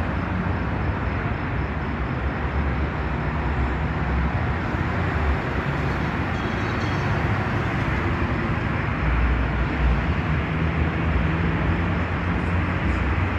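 Steady low rumble and hiss of outdoor background noise, swelling briefly about nine seconds in.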